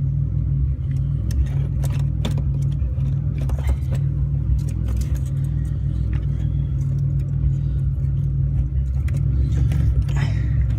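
A steady low rumble with scattered light clicks and clinks as a strainer sock is pushed onto an electric fuel pump on its sending unit.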